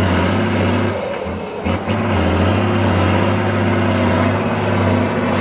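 Trial truck's diesel engine running hard and steady, with a brief dip about a second and a half in.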